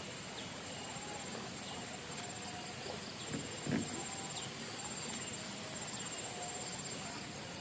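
Rural outdoor ambience: a steady hiss under a high, pulsing insect trill that comes and goes, with a few faint short chirps. A soft knock about three and a half seconds in.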